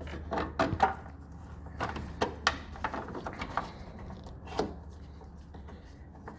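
Irregular plastic clicks, knocks and rubbing of a hand twisting and wiggling the front turn signal bulb socket out of a 2013 Nissan Sentra's headlight housing, over a steady low hum.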